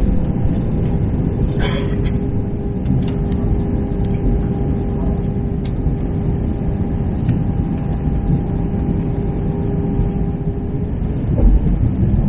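Steady rumble of airflow and engines inside the cabin of an Airbus A321 during its descent. A steady tone starts with a click about two seconds in and stops near the end, followed by a low thump.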